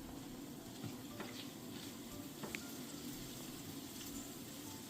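Bacon and green pepper sizzling steadily in a frying pan over low heat, with a few faint clicks.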